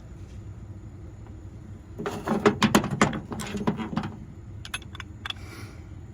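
Parts of a Stripmeister wire stripper clicking and knocking as they are handled and fitted back together: a rapid run of sharp clacks lasting about two seconds, starting about two seconds in, then a few single clicks.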